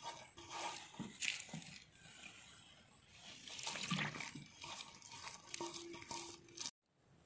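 A hand mixing a wet chilli-powder spice paste on a steel plate: squelching and scraping against the metal in irregular strokes. It cuts off abruptly near the end.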